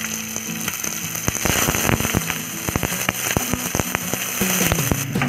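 Sliced onions frying in hot oil in a kadhai: a steady sizzle, with a run of sharp crackles and knocks from about a second in as a wooden spatula stirs them.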